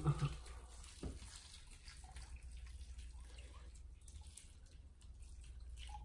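Hot water poured from a cup into a glass Pyrex baking dish of rice and chickpeas: a faint trickle with small splashes over a steady low hum.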